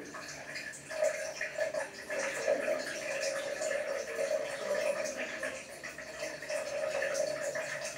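A pig urinating onto a tiled shower floor: a continuous splashing stream of liquid.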